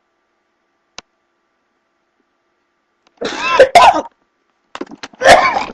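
A woman coughing and gagging on a mouthful of dry ground cinnamon that has caught in her throat. The coughing comes in two loud fits, starting about three seconds in, after a faint click about a second in.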